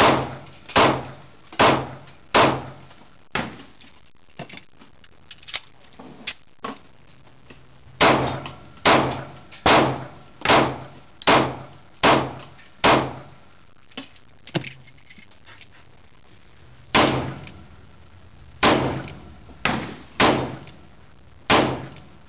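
Handgun shots fired at a steady, unhurried pace, about one a second, in three strings separated by pauses of a few seconds. Fainter, sharper reports sound in the gaps between strings.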